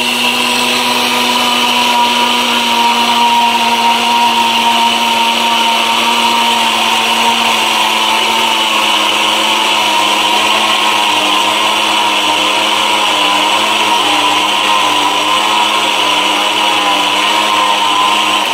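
Orpat 1600-watt steel-bush blender running steadily at full speed while grinding dry rice into powder: a loud motor whine with a gritty hiss. It cuts off abruptly at the very end.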